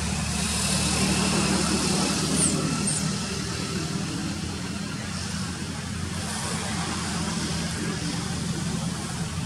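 Steady low engine-like hum over a constant background hiss. Two short, high, falling chirps come about two and a half and three seconds in.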